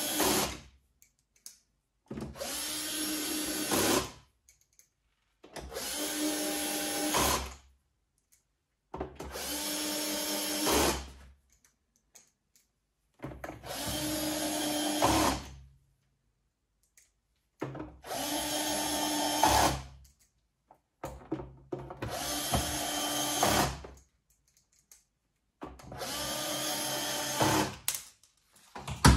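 Cordless drill-driver running in seven short runs of about two seconds each with brief pauses between, driving screws into the side panel of a coffee machine; each run gets louder near its end.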